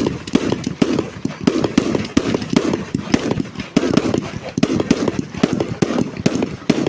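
Fireworks display going off: a rapid, irregular string of loud bangs and crackles, several a second, over a low rumble.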